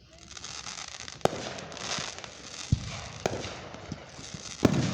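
Aerial fireworks going off: a steady crackle with about four sharp bangs, the loudest boom near the end.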